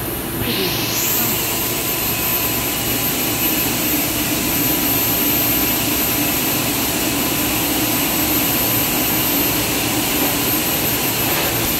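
Meltblown fabric production line running: a loud, steady rush of air and machine hum, with a higher hiss coming in about half a second in.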